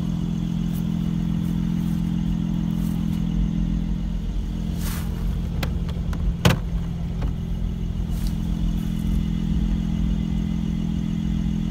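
The 2017 Mercedes-AMG SLC43's twin-turbo V6 idling with a steady low hum. A sharp knock comes about six and a half seconds in.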